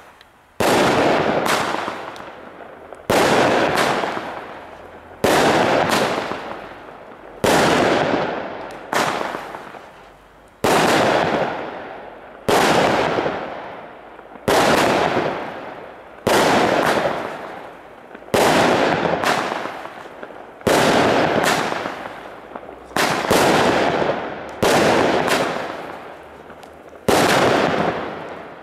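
Weco Poison firework battery firing shot after shot, about one every two seconds, each a sharp report that trails off over a second or so.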